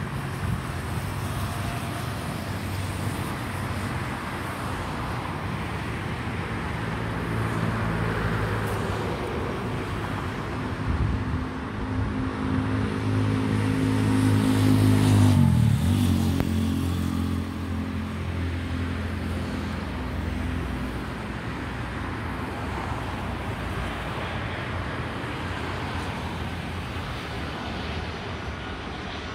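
A road vehicle drives past close by. Its engine hum builds for several seconds, peaks about halfway through and drops sharply in pitch as it goes past, over steady background traffic noise.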